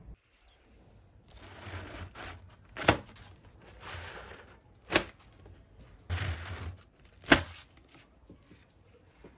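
Paper towel rustling as it is pulled out through the slot of a homemade PVC-pipe paper towel dispenser, three times, each stretch of rustling followed by a sharp click, the last click the loudest.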